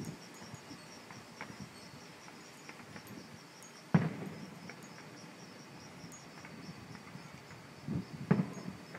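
Fireworks going off in the distance: a bang at the start, a loud one about four seconds in, and two more close together near the end. Crickets chirp steadily underneath.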